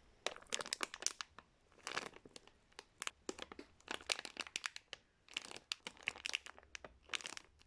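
Plastic packaging crinkling in irregular clusters of short crackles as soft foam squishies are squeezed and handled.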